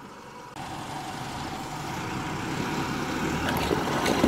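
A 4WD ute's engine running as it crawls slowly up a steep, rutted rocky track, with the crunch of tyres over loose stones and gravel. The sound grows slowly louder as the ute comes closer, with a few sharp knocks near the end.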